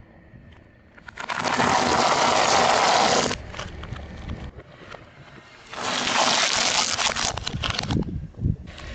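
Car tyre rolling over and crushing objects, in two long crackling bursts of about two seconds each, the second starting a little past the middle.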